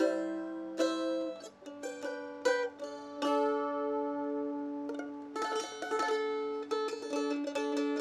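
A Rogue mandolin, with eight steel strings in four paired courses, playing a short passage of picked notes and chords. It is sustained for a stretch in the middle, then busier rapid picking about five seconds in.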